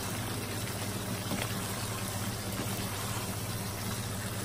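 A thick chicken, potato and tomato sambal simmering in a frying pan while a wooden spatula stirs it, with a few soft knocks, over a steady low mechanical hum.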